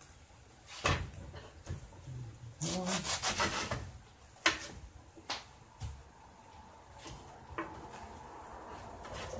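Knife cutting through a head of cabbage on a wooden cutting board: a run of crunchy slicing and scraping strokes, with several sharp knocks of the blade against the board.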